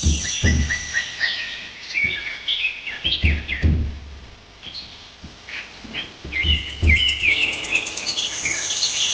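Several birds chirping and trilling in quick, overlapping calls over a steady high hiss, with a few low dull thumps about every three seconds.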